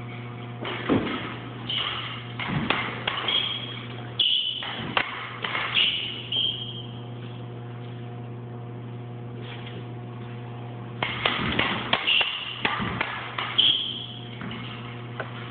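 Fencing blades clashing in two quick flurries of sharp metallic clicks, some ringing briefly, with thumps of footwork on a wooden floor; a lull of a few seconds between the flurries. A steady low hum underneath.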